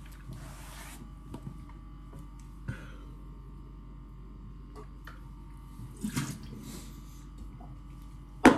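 Steady electrical hum while a man drinks from a plastic shaker cup, with soft rustling handling noises, and one sharp knock near the end.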